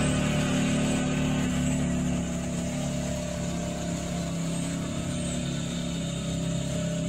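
Bighorn Explorer 400 side-by-side utility vehicle's engine running steadily as it drives away, slowly fading with distance.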